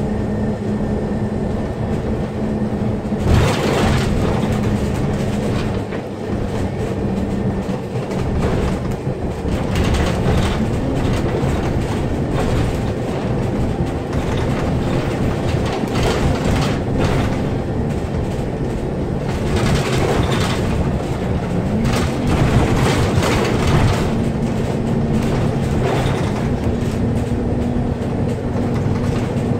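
Steady running noise of a moving vehicle: a dense rumble with a low hum that steps up in pitch twice, and a few scattered knocks.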